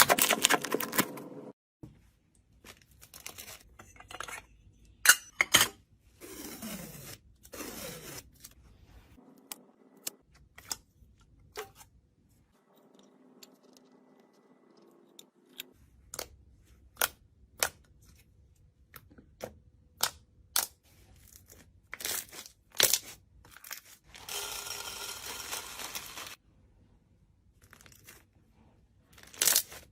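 Slime worked by hand, giving many scattered sharp crackles and pops. There are short bursts of crunching or tearing texture, with a longer crunchy stretch about three-quarters of the way through.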